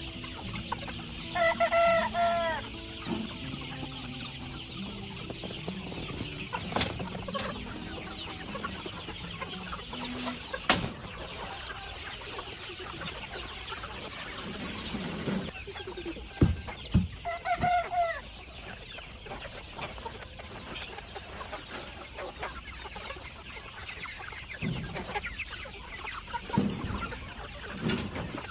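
Free-range chickens clucking and calling, with two loud, wavering calls of about a second each, one about 2 s in and one about 17 s in. Several sharp knocks are heard, and a steady hiss runs underneath.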